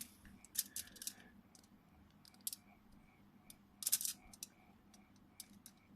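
A small metal hand tool scraping and picking at hardened super glue on a phone's parts: irregular short, sharp scratches and clicks, the loudest cluster about four seconds in.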